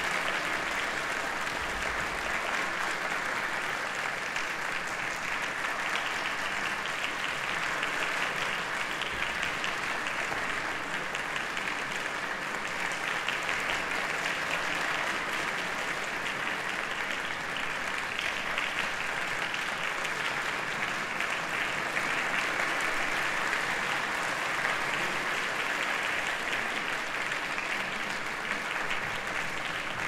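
Audience applauding, a dense, even clapping that holds steady and eases off slightly near the end.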